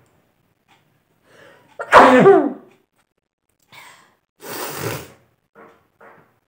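A woman's loud sneeze about two seconds in, its pitch falling as it goes, provoked by tickling her nose with a long blade of grass. A couple of seconds later comes a quieter, breathy rush of air.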